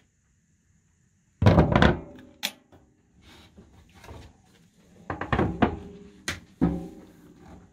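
A wooden galley storage hatch thuds shut, then wooden cutting boards knock and clatter several times as they are lifted off the stove and stacked on the counter.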